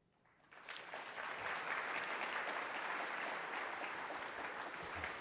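Audience applauding, breaking out about half a second in after a brief hush and building within a second to a steady level.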